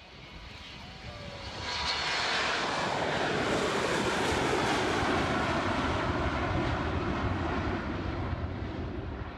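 Boeing 727's three rear-mounted JT8D turbofans at takeoff power as the jet climbs out past. The loud jet noise swells about a second and a half in, holds, and starts to fade near the end.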